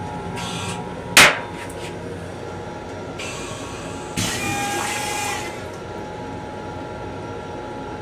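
M7 railcar toilet flushing: a sharp clack about a second in, then a hiss of rinse water into the stainless-steel bowl that starts about three seconds in and swells for about a second. The steady running noise of the train lies underneath.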